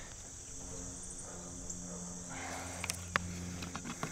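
Steady, high-pitched chirring of insects, with a few small clicks about three seconds in.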